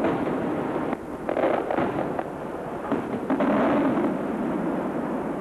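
Aerial firework shells bursting: a series of sharp reports, several close together around the middle, with a rolling echo filling the gaps between them.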